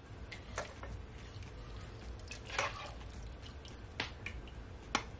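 Escovitch dressing of vinegar and pickled vegetables being spooned from the pan onto fried fish: four soft wet clicks and splats, a second or so apart, as the ladle dips and the dressing drips and lands.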